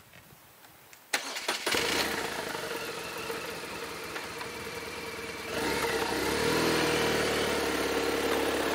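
BMW R1200R's 1170 cc boxer twin being started: a click about a second in, then the engine catches and idles, and about five and a half seconds in it revs up with a rising pitch as the motorcycle pulls away.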